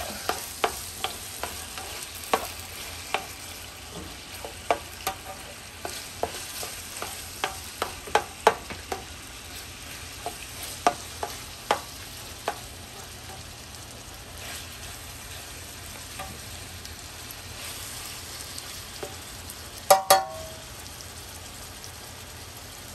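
Cubed pork browning in hot oil in a pot: a steady sizzle, with a utensil scraping and clicking against the pot many times during the first half as the meat is stirred. Two sharp, ringing knocks come near the end.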